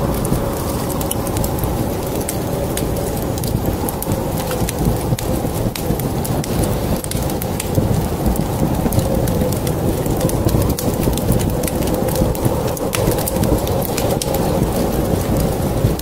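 Log fire crackling in a fireplace, with many sharp scattered pops over a steady low rumble.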